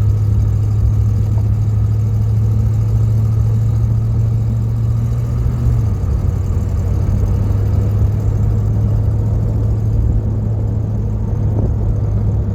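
Mopar car's engine running at a steady cruise while driving, a steady low drone that drops slightly in pitch about halfway through.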